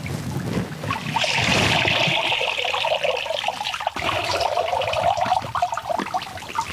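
Water trickling and splashing back into an aluminium basin as handfuls of soaked glutinous rice are lifted out and drained.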